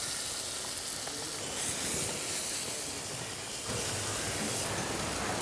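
Oil sizzling with a steady hiss in a wide metal pan as freshly added ground spice fries. Past the middle, a wooden spatula stirs and scrapes it across the pan.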